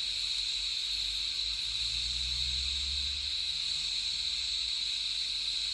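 TIG welding arc running steadily on current from car batteries, with argon shielding gas flowing at the torch: a constant, even hiss. The batteries are slowly running down, so the arc is weakening very slightly.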